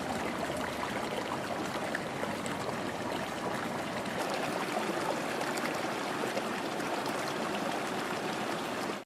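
Geothermally heated river water flowing over rocks near the base of a hot waterfall: a steady, even rush of stream noise.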